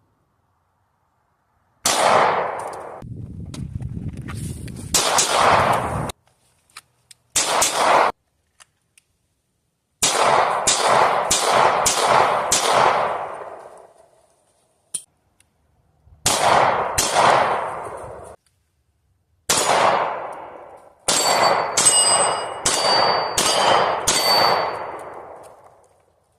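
Gunshots fired in groups: single shots spaced a few seconds apart, then quick strings of four or five shots. Each shot leaves a decaying tail, and the shots of the last string carry a metallic ring.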